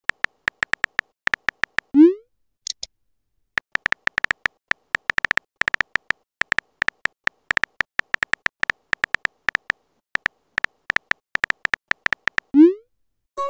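Phone keyboard typing clicks: a rapid, irregular run of short clicks as a message is typed, with a short rising pop about two seconds in and another near the end.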